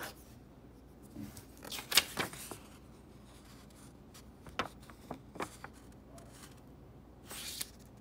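Handling of a paper index card and pen: short rustles and taps as the card is moved and lifted, the loudest about two seconds in and another longer rustle near the end.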